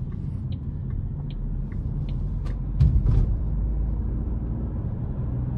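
Alfa Romeo Junior Hybrid with its 1.2 mild-hybrid engine, driving along, heard from inside the car: a steady low rumble of engine and tyres, with a few light clicks and a short, louder thump about three seconds in.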